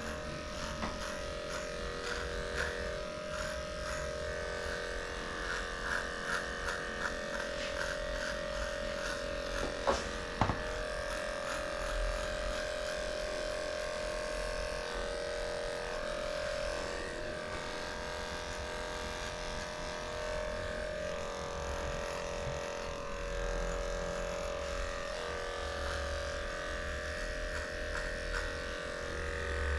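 Electric dog-grooming clippers buzzing steadily as they cut through the coat, with a couple of light knocks about ten seconds in.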